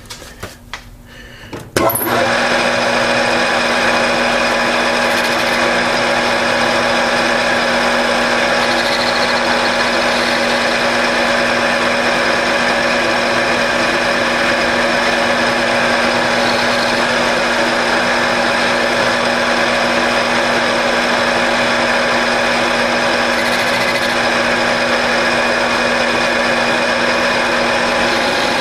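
A few light clicks, then a Grizzly G4003G gear-head metal lathe switches on about two seconds in. It runs at a steady speed with an even gear whine.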